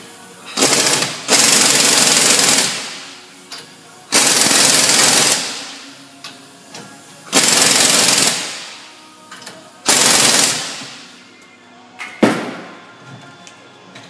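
Air impact wrench hammering as it drives the threaded rods of a strut spring compressor, compressing a front strut's coil spring. It comes in four bursts of one to two seconds, each trailing off, and a short blip about twelve seconds in.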